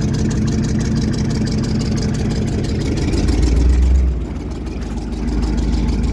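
1971 Chevy C10 engine running on a cold start through a Cherry Bomb glass-pack muffler, with a steady low exhaust pulse. About three seconds in the low rumble swells, drops off sharply just after four seconds, then picks back up about a second later.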